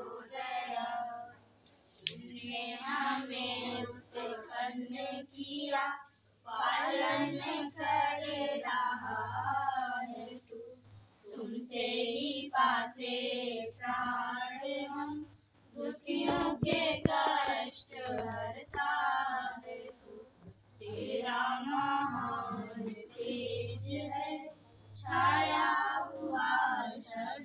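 Girls' and a woman's voices chanting prayer mantras together in unison, phrase after phrase with short breaks between them.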